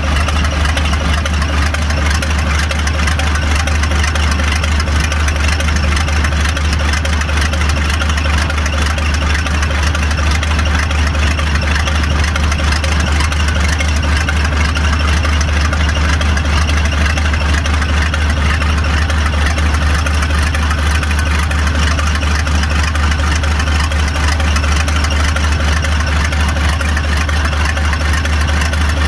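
Preet 987 combine harvester's six-cylinder diesel engine idling steadily with its valve cover off.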